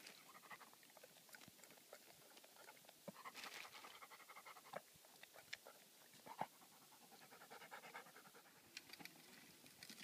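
German Shorthaired Pointer panting faintly after running, with a few small clicks in between.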